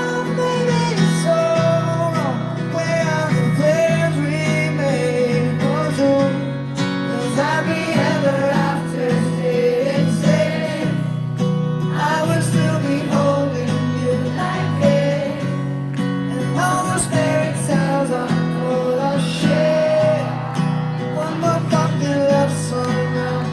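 Live pop-rock band playing at concert volume: electric guitar, a steady bass line and a sung melody.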